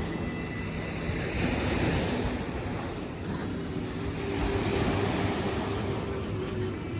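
Ocean surf washing onto the shore, swelling twice, with wind on the microphone and a steady low hum underneath.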